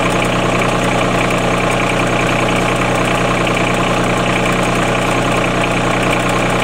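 Engine of a green tree-work machine idling steadily, with no change in speed.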